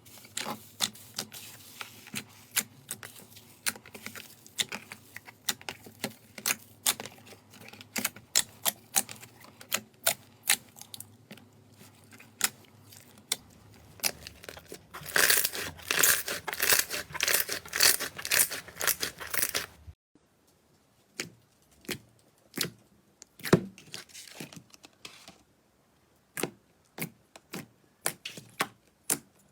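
Slime being squished and worked by hand, a running stream of wet clicks and crackling pops. The crackling is densest and loudest from about fifteen to twenty seconds in, then gives way to a quieter stretch of sparser, separate pops.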